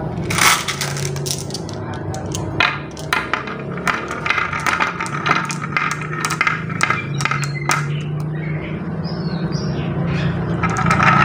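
Marbles clicking against each other and rattling in the wavy channel of a wooden marble-run slope as they are loaded in one by one, many sharp clacks at uneven intervals, over a steady low hum.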